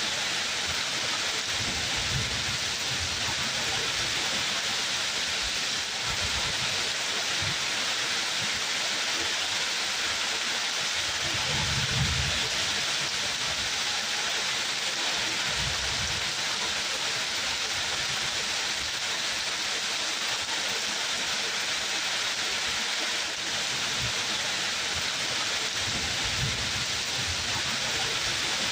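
Steady heavy rain, a dense even hiss, with brief low rumbles every few seconds, the strongest about twelve seconds in.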